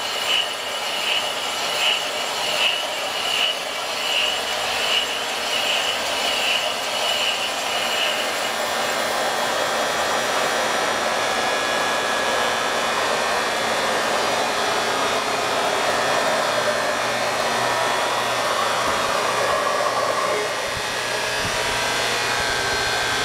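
Belt-driven lathe taking a boring cut through a cast-iron steam engine casting with a boring bar. A high chirp repeats a little over once a second for the first several seconds, then the cut and machinery run on as a steady noise.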